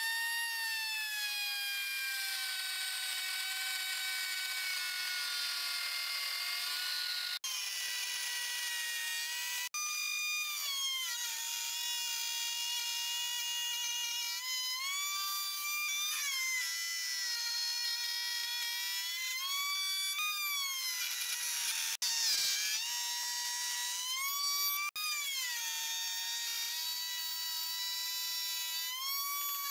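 Table-mounted wood router running with a high whine as a straight bit cuts a groove in a wooden board. The pitch sags when the bit bites into the wood and climbs back as the load eases. The whine breaks off abruptly a few times.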